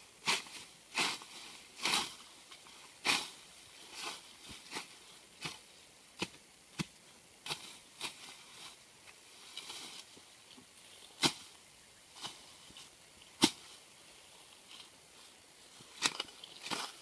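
A hoe chopping into grass and soil: irregular sharp strikes about once a second, each with a brushy swish of cut weeds. The two loudest strikes come about two-thirds of the way through.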